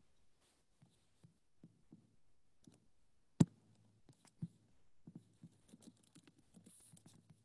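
Faint, scattered clicks and taps of a computer keyboard and mouse, with one sharper click about three and a half seconds in.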